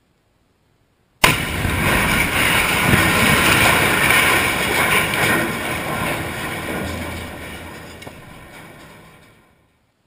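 Explosive demolition of a steel bucket-wheel excavator: a sharp, loud blast about a second in, followed by several seconds of rumbling and crashing as the steel structure comes down, fading away near the end.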